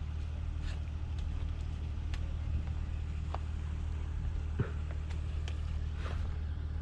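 Steady low hum of an idling engine, with a few faint clicks and taps.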